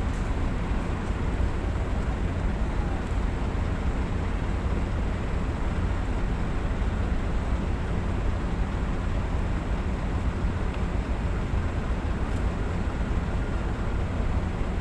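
Heavy diesel engine running with a steady low rumble and constant noise over it.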